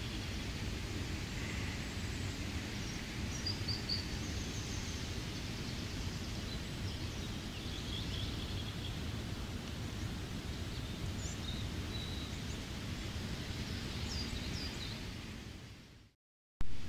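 Steady rain with forest birds chirping now and then. Near the end the sound fades out, breaks off for a moment, and starts again with a brief loud onset.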